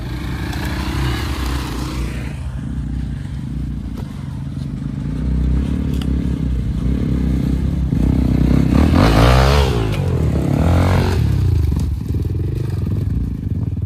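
Dirt bike engines running and revving on a rough trail, the pitch wavering up and down and loudest about nine seconds in.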